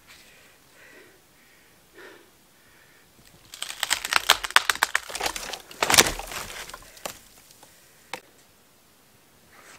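Dry branches and twigs cracking and snapping in a dense burst for about three seconds, the loudest snap about six seconds in, followed by one more single snap.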